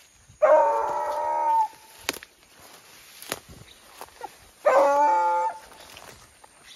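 American hunting hound (americano urrador) baying twice: two long, steady-pitched howls, the first about half a second in lasting over a second, the second shorter, a little past the middle.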